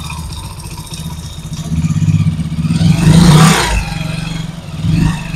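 Honda Pridor's 100cc single-cylinder engine running in gear, clutch released, with the brake lightly applied to load the drive. The load brings out a noise from the clutch box (clutch basket), which grows louder for about a second around the middle.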